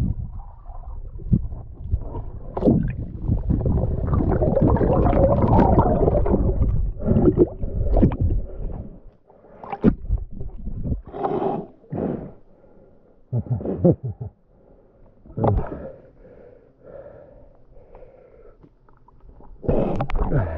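Muffled underwater sound of a scuba diver on a river bottom: a long rush of water and movement, then the diver's breathing and bubbles in short bursts a second or two apart, and a loud burst near the end as the diver comes up to the surface.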